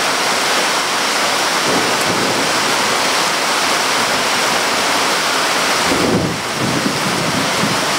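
Heavy rain pouring down, a loud, steady hiss.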